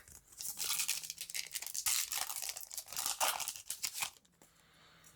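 Foil Yu-Gi-Oh booster pack wrapper being torn open and crinkled, a scratchy run of tearing for about four seconds before it goes quieter.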